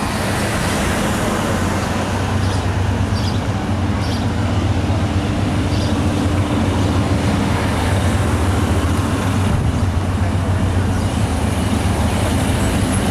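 An engine idling with a steady low hum, over an even hiss of street traffic noise.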